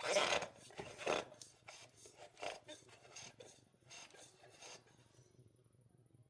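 Blue paper shop towels wiping and scrubbing the inside of an oil furnace filter canister, a run of quick rubbing strokes that grow fainter and stop about five seconds in.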